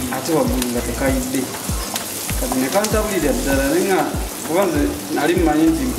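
Diced onions sizzling in hot oil in a pan as they are stirred with a wooden spatula, under music with a steady beat and a melody.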